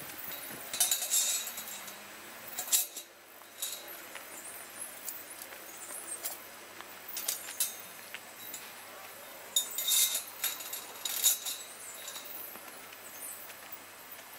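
Galvanized steel sheep-hurdle panels clinking and rattling as they are lifted, carried and hooked together. Clusters of metallic clatter come about a second in, near three seconds, and again around ten and eleven seconds.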